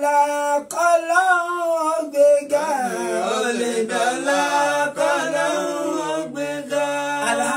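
Men's voices chanting a Yoruba devotional song unaccompanied, with long held notes that slide between pitches.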